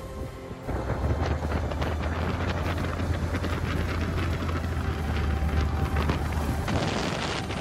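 Wind buffeting a microphone mounted on the outside of a Honda Ridgeline as it drives down a gravel road, with its tyres rolling over the gravel and many small clicks of stones. The noise starts abruptly about a second in.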